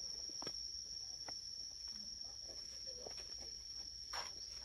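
Steady high-pitched drone of insects, a cricket or cicada chorus, with a few brief clicks.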